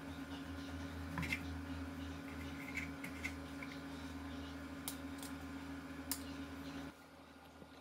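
Metal knife and fork cutting through a stack of pancakes on a wooden plate, with a few sharp clicks and scrapes of the cutlery against the plate over a steady low hum. The hum cuts off shortly before the end.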